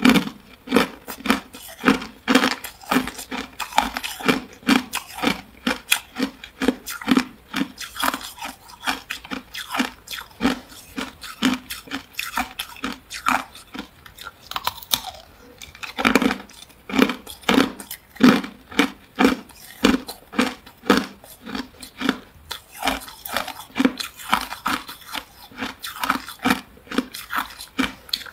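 Hard clear ice being bitten and chewed close to the microphone: a steady run of sharp crunches, about two to three a second.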